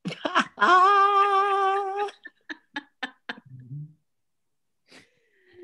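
A person's voice: a brief burst, then one long, slightly wavering held vocal sound lasting about a second and a half, likely a drawn-out reaction to the photo, followed by a few faint clicks and a short falling hum near the end.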